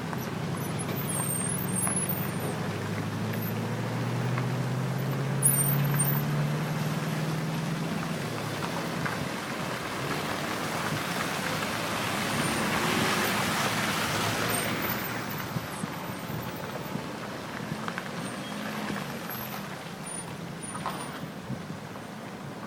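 Street traffic: a vehicle engine hum rising slightly in pitch over the first several seconds, then a vehicle passing by, its tyre noise swelling about halfway through and fading away.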